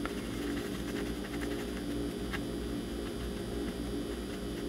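Steady low electrical hum of workbench equipment, with a faint click about two and a half seconds in.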